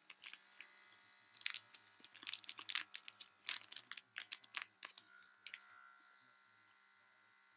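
Plastic vacuum storage bag full of clothes crinkling and crackling as it is squeezed and handled, a quick irregular run of sharp crinkles that stops about five seconds in.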